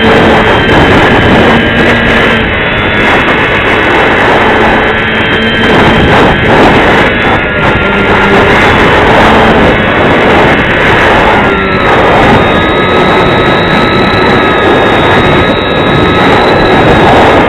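Strong wind buffeting the microphone, with the steady whine of a radio-controlled Visionaire aerobatic plane's motor and propeller; the whine drops in pitch about twelve seconds in as the throttle eases.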